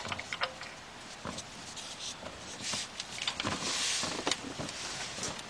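Scattered clicks and scraping from a half-inch ratchet and socket on the crankshaft pulley bolt. The engine is being turned over by hand to roll the stretch-fit accessory belt off with a removal tool.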